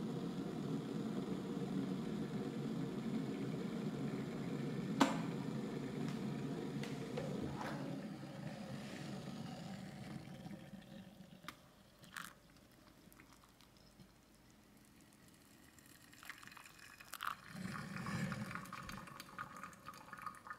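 Hot water poured steadily from a kettle into a paper-filtered coffee dripper, fading out after several seconds. A few light clicks follow, then near the end a metal spoon stirs the wet coffee grounds with small clinks.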